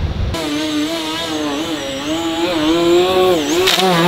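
RC model airplane's motor and propeller running in flight, a buzzing whine whose pitch rises and falls as the throttle is worked. It comes in suddenly a moment in.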